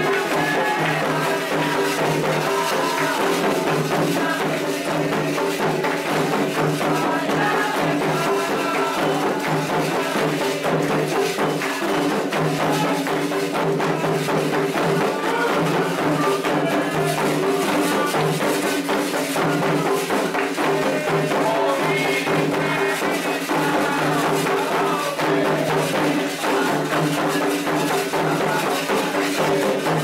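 Candomblé ritual music for Xangô: drums with rattling and ringing percussion keep a steady dance rhythm under group chanting.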